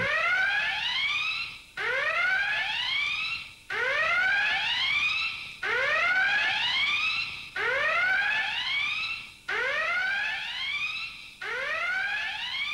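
Electronic whooping alarm: a rising tone that sweeps upward, fades and starts again about every two seconds, seven times over.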